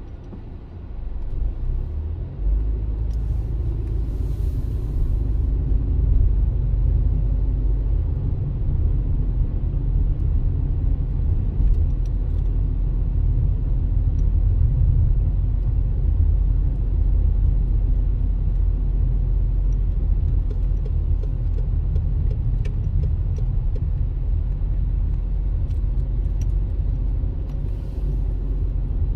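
Steady low rumble of a vehicle driving along the road, engine and road noise, growing louder about two seconds in and then holding.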